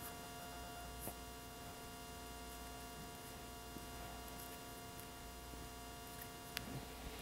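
Low, steady electrical mains hum, with a few faint clicks and one sharper click near the end as the hydraulic cylinder rod eye is turned by hand on its threaded rod.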